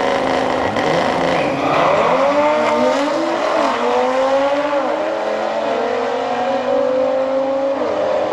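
Stage 2 tuned Audi RS3's turbocharged five-cylinder at full throttle down the drag strip. The engine pitch climbs steadily through each gear and drops sharply at every upshift, about four times.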